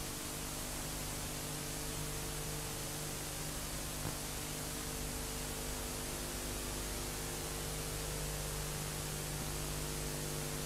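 Steady hiss with a low mains hum made of several steady low tones; one faint click about four seconds in.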